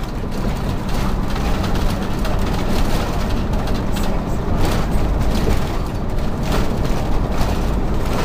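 Motorhome driving at freeway speed, heard from inside the cabin: a steady low rumble of road and engine noise, with short rattles and knocks from the interior every second or so.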